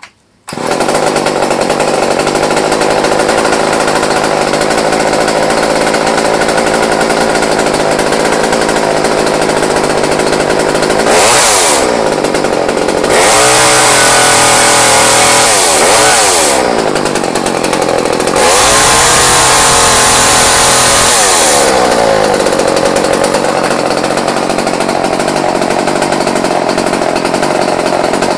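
Craftsman 36cc two-stroke chainsaw engine starting about half a second in without the choke, then idling steadily. Around the middle it is revved up several times, twice held at high revs for a few seconds, then drops back to a steady idle. It runs easily on a rebuilt carburetor and new fuel line.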